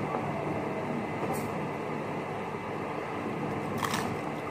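Crunch of a crisp fried corn-tortilla tostada being bitten, sharpest near the end, with a fainter crackle about a second and a half in, over a steady background hum.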